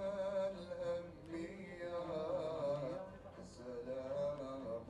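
Music: a man singing a slow, wavering melody over a steady instrumental accompaniment.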